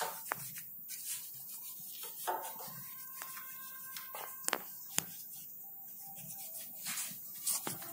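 Quiet hand work at a motorcycle engine: a few sharp clicks and light taps, scattered through, over faint rubbing.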